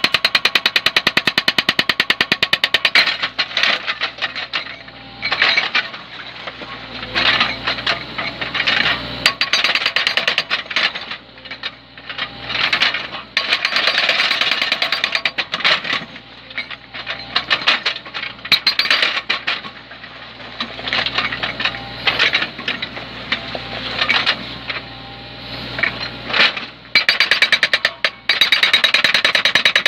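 Indeco HP 500 hydraulic breaker on a CAT 305.5E mini excavator hammering rock in rapid, even blows. It works in bursts that stop and restart several times, and the excavator's engine runs with a low steady hum underneath.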